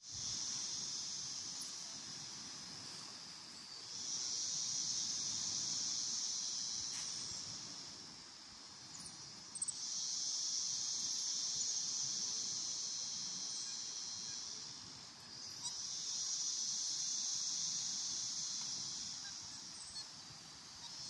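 Insects buzzing in a high, steady drone that swells and fades in long waves of about four to six seconds each, with a few faint clicks between them.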